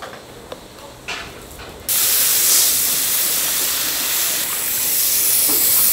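A few light clicks and knocks, then a loud steady hiss that starts abruptly about two seconds in.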